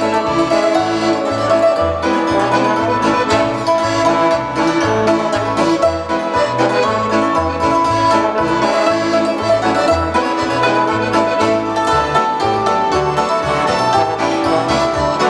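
Live polka played by hammered dulcimer, trombone, piano accordion and electronic keyboard, with a bass line stepping about twice a second under the melody.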